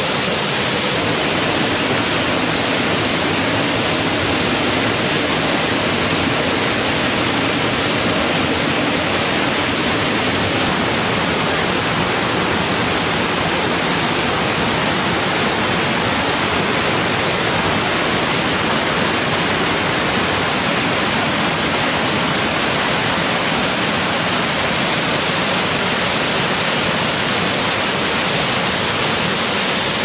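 Waterfall rushing steadily, a loud, even hiss of falling water that does not change.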